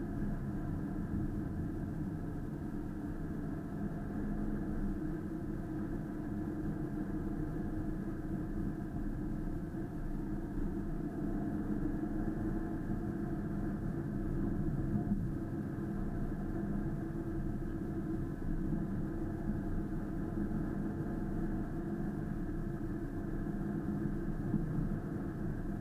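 Steady low rumble of a car driving, its engine and road noise heard from inside the cabin.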